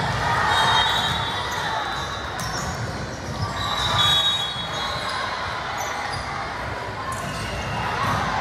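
Volleyball gym ambience: a murmur of voices echoing in the large hall, with short sneaker squeaks on the court floor and a few sharp ball thumps.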